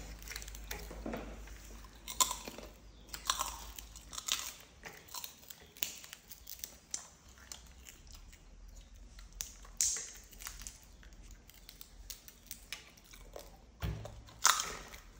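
Young macaques biting and chewing crunchy tube-shaped snacks: irregular crisp crunches and mouth sounds.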